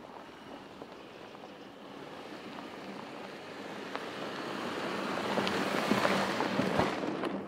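Porsche Cayenne SUV driving on a dirt track, its tyres crunching and popping over gravel and loose stones over a faint steady engine hum. It grows louder as the SUV approaches and is loudest as it passes close by about six seconds in.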